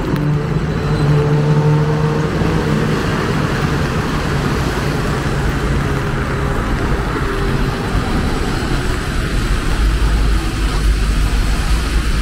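Road traffic in the rain. A vehicle engine runs close by at a steady pitch and fades over the first three seconds or so. After that comes a steady hiss of traffic on wet road, with a low rumble growing near the end.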